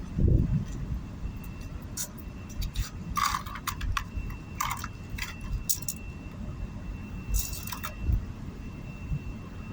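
Small metal pieces clinking and jingling in short clusters, several times, over a low rumble and a faint steady high-pitched whine.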